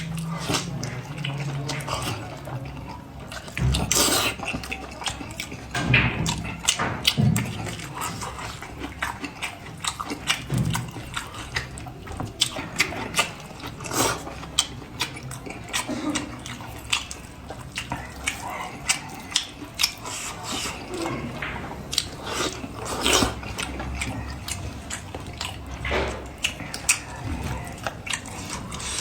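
Close-miked wet chewing, lip-smacking and sucking while eating spiced sheep's head meat, made up of many irregular sharp clicks and smacks.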